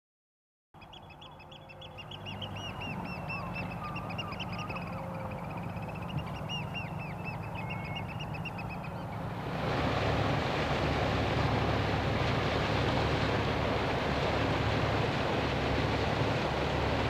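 Birds calling in quick runs of repeated high notes over a low hum; about halfway in, the calls give way to a steady rushing noise with a low engine hum as a motor boat passes through the water.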